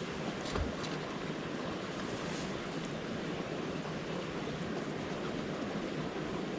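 Steady rushing wind with one short low thump about half a second in.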